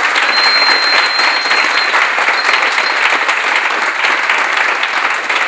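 Audience applauding, a dense, steady clapping, with a thin high tone held over it for about a second and a half near the start and again briefly a little later.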